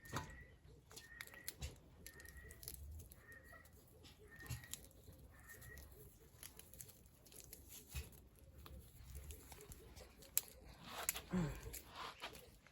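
A bird calling a short, slightly rising chirp over and over, about every half second, stopping about six seconds in. Scattered light knocks and rustles sound around it.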